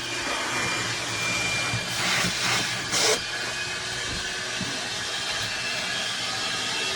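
A steady rush of air from a running motor-driven machine, with a faint steady whine over it and a brief louder rush about three seconds in.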